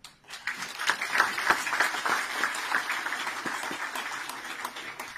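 Crowd of spectators applauding: dense clapping that starts suddenly and thins out near the end.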